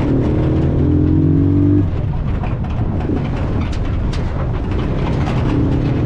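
A motor vehicle's engine running under load, its note rising in pitch as it accelerates, breaking off about two seconds in and coming back near the end, over a steady rushing noise.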